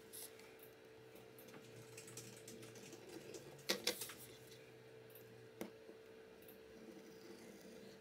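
Light clicks and taps of a smartphone's metal frame being handled and pressed down on a work table, several in quick succession about four seconds in, over a faint steady hum.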